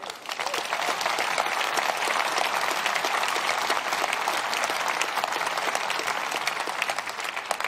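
A large audience applauding: many hands clapping at once, starting the moment the speech breaks off, holding steady and tailing off near the end.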